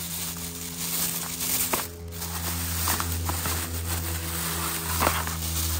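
Thin plastic carrier bags crinkling and rustling as they are handled, with a few sharp crackles, over a steady low hum made of several held tones.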